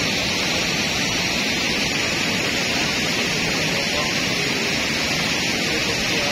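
Steady rush of water pouring over a river weir, an unbroken even hiss.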